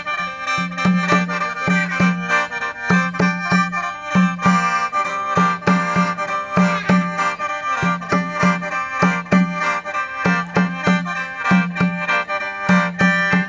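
Khaen, the Isan bamboo free-reed mouth organ, playing a traditional tune with sustained drone notes held above a regular low rhythmic beat.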